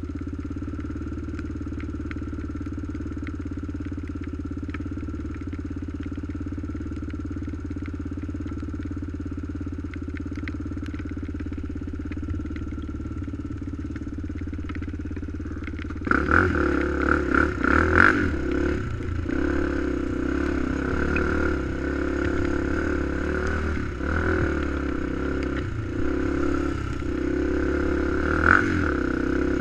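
Small ATV engine idling steadily, then about halfway through it suddenly gets louder and runs with changing throttle as the quad rides off.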